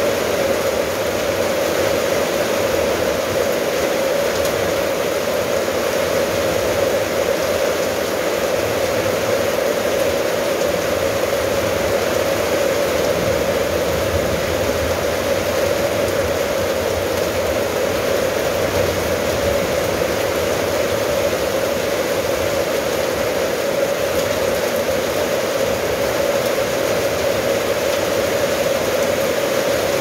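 Steady rain falling on a corrugated metal roof and a wet tiled yard, an even, unbroken hiss that does not change.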